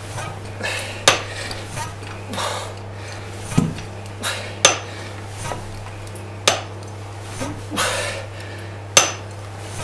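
High-pressure PCP hand pump worked by hand to fill an air cylinder above 200 bar: five sharp metallic clacks at uneven intervals, with softer short rushing sounds between strokes.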